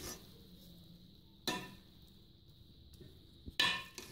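Metal spoon knocking against a metal cooking pot while cooked rice is turned over: two sharp clinks about two seconds apart, the second louder.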